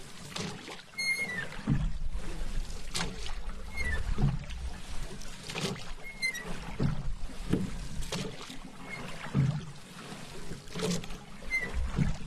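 Paddle strokes in water, in a steady rhythm of about one stroke every 1.3 seconds: each a low swish and splash as the blade pulls through, over a soft lapping of water.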